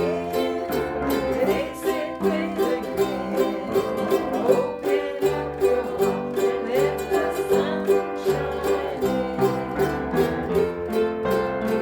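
Upbeat instrumental music with a plucked-string instrument strumming a steady, even beat over a moving bass line.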